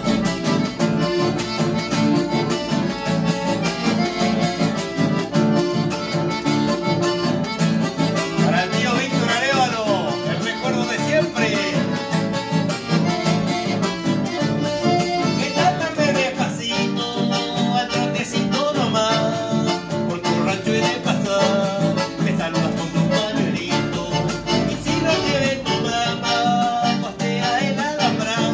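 Button accordion and acoustic guitar playing a tune together at a steady rhythm, the accordion carrying the melody over strummed guitar chords.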